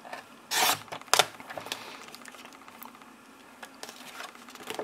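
Stampin' Up paper trimmer's sliding blade run along its rail, cutting through cardstock: a short scraping swish about half a second in and a sharp click, then faint light ticks.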